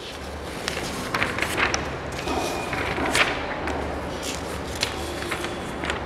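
Loose sheets of paper rustling and crackling as they are handled and leafed through, in a string of short crinkles over a low steady hum.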